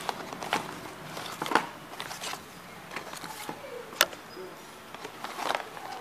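A cardboard phone box being opened and handled by hand: irregular scrapes, taps and rustles of card, with a sharp click about four seconds in.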